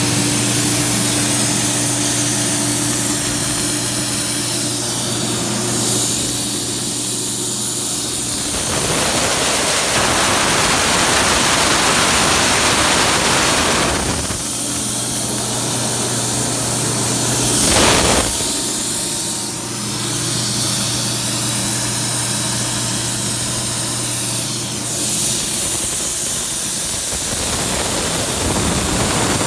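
CNC tracker cutting torch hissing steadily as it cuts 3/8-inch plate, over a constant machine hum. The hiss grows louder and harsher for several seconds in the middle.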